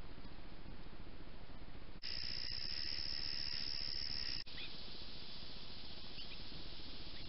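Trail-camera audio with a steady background hiss. For about two and a half seconds in the middle, a steady high-pitched chorus of night insects trills, then cuts off suddenly. After it come a few brief, high, rising bird chirps.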